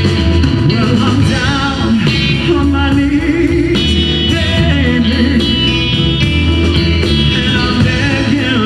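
Live electric blues band playing a slow blues, with a male voice singing over guitar, bass, keyboard and drums.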